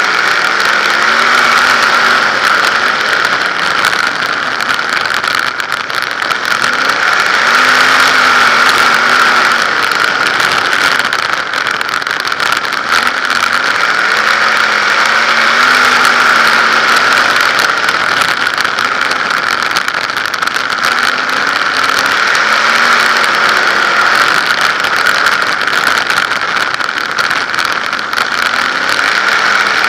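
360 sprint car's V8 engine at racing speed, heard from the onboard camera over a steady loud hiss. The engine pitch rises and falls in repeated swells every six or seven seconds as the car works around the oval.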